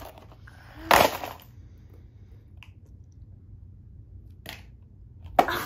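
LEGO pieces and packaging being handled: one sharp snap about a second in, then a couple of faint clicks.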